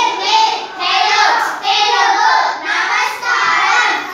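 A group of children singing together in unison, in short rhythmic phrases.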